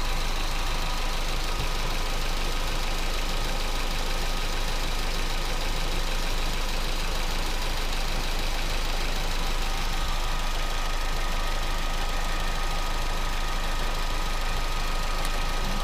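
Vauxhall Astra engine idling steadily at running temperature. The owner suspects a lazy hydraulic lifter, noisy on start-up but quiet once the engine is warm.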